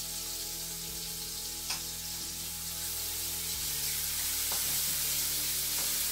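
Chopped garlic and onion sizzling in hot oil in an aluminium wok as chopped tomato is scraped in and stirred with a wooden spatula. There is one sharp tap about a second and a half in, and a few light knocks of the spatula against the pan later on.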